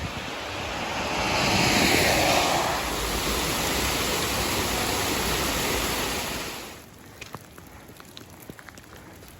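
Loud, steady rushing noise of water in pouring rain, swelling about two seconds in. It cuts off suddenly near seven seconds, leaving a quieter patter of scattered drops.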